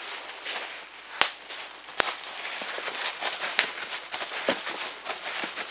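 Bubble wrap crinkling and crackling as a package wrapped in it is handled, with several sharp snaps among the rustle.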